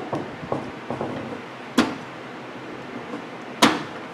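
Clicks and knocks from handling the parts around a Frigidaire microwave's stuck micro switch as it is being taken out: a few light clicks in the first second, then two louder sharp knocks about two seconds apart.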